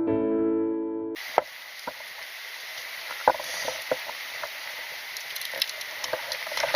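Soft piano music for about the first second, then it cuts off and a mountain stream rushes steadily, with scattered sharp clicks and knocks over it.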